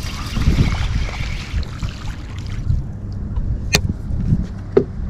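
A hooked small redfish splashing at the surface as it is reeled in, over a steady rumble of wind on the microphone; the splashing stops about halfway through and two sharp clicks follow as the fish is lifted out of the water.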